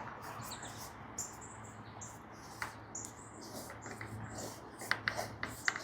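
Small birds chirping repeatedly in the background, with a few light clicks and taps near the end.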